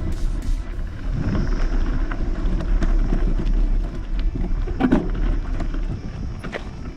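A vehicle driving over a rough track: a steady low rumble of engine and tyres with scattered knocks and clicks, the strongest about five seconds in, and wind buffeting the microphone.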